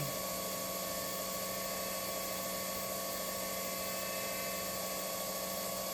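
Spindle of a Chevalier QP1620-L vertical machining center running steadily at 3,000 rpm: an even whine of several steady tones over a constant hiss.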